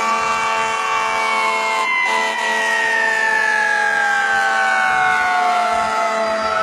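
Emergency siren wailing, its pitch falling slowly in one long glide, with steady tones held beneath it.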